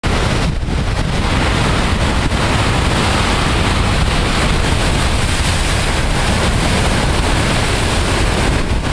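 Heavy storm-driven surf breaking and crashing over rocks in a loud, steady churning wash of water, with wind buffeting the microphone.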